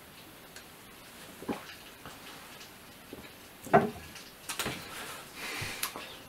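A glass tumbler set down on a wooden desk with one sharp knock about four seconds in, among a few softer clicks and taps.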